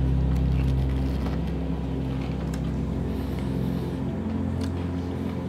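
A steady low hum from a motor or engine, easing off slightly toward the end, with faint chewing over it.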